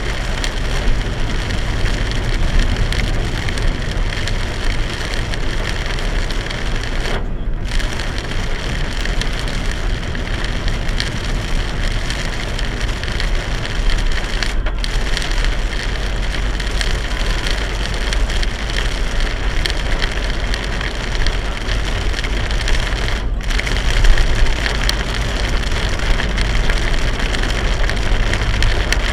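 Torrential rain pounding on a moving car, recorded from inside by a dashcam, over steady tyre and road noise. The rain hiss briefly drops out three times.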